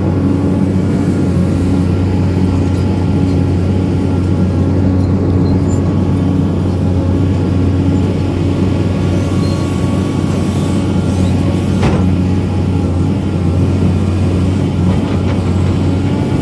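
Excavator's diesel engine running steadily, with a single sharp knock about twelve seconds in.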